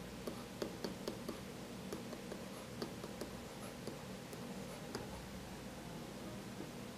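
Faint, irregular ticks and light scratches of a stylus writing on a digital pen surface as a word is handwritten, several small taps a second, thinning out near the end.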